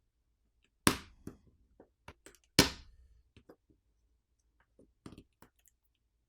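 Two sharp clicks, about a second and about two and a half seconds in, with lighter ticks and taps between and later: small hand tools and smartphone parts being handled as the phone is taken apart.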